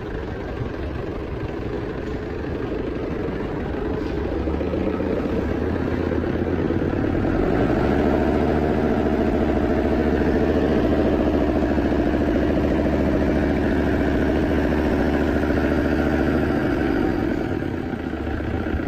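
Cummins B3.3 four-cylinder diesel engine running steadily after being started. It gets louder about seven seconds in and eases back down near the end.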